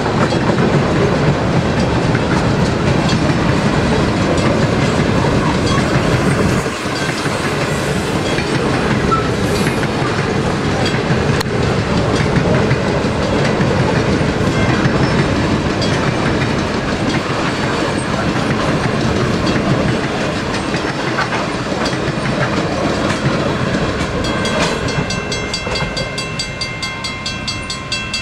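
Grain hopper wagons of a long wheat train rolling past, wheels clattering steadily on the rails. Near the end a high steady ringing joins in and the noise begins to fade as the last wagons go by.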